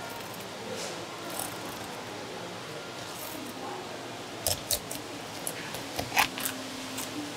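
A long filleting knife cutting along a sea bass's backbone: quiet slicing at first, then a run of sharp clicks and taps from about halfway through as the blade meets bone and the cutting board, over steady background noise.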